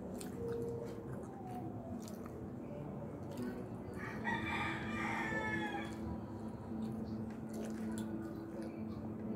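A rooster crows once, a call of about two seconds starting about four seconds in.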